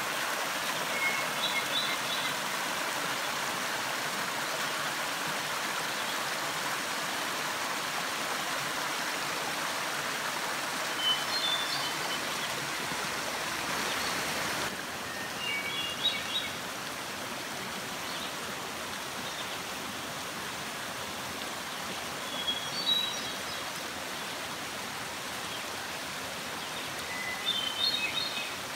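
A small forest brook rushing and splashing steadily over mossy rocks, the rush dropping slightly about halfway through. A bird chirps briefly about five times over the water.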